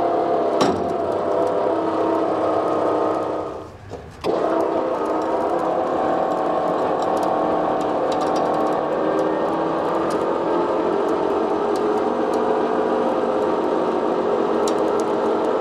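Vintage Dodge M37 off-road wrecker running its winch to pull a truck: a steady mechanical whir over the running engine. The sound drops away briefly about four seconds in, then carries on steadily.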